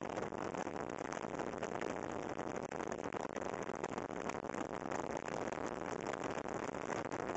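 Steady rush of wind and road noise from travelling at highway speed, with the motorcycles' engines running underneath and no clear rise or fall.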